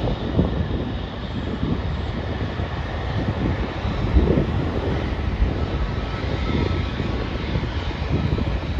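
Jet airliner's engines as a steady roar, with a faint steady whine above it, and wind buffeting the microphone.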